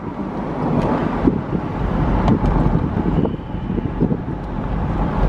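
Wind buffeting the microphone over the road noise of a 1995 Jaguar XJS V12 driving along; the engine itself is barely heard.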